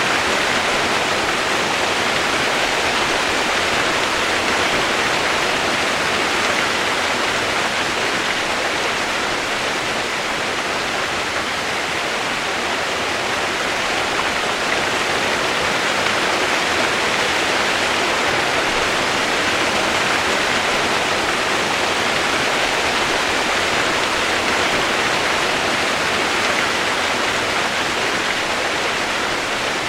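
Steady rain, heard as an even, unchanging hiss.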